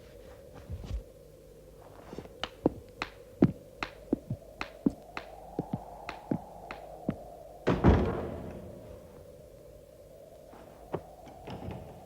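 A run of sharp, irregular knocks and clicks, several a second, then one heavier thud about eight seconds in, over a low steady hum.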